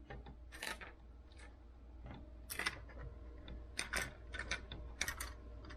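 Faint, irregular small plastic clicks and taps from a Lego model being handled and its moving parts being worked, about a dozen clicks spread unevenly.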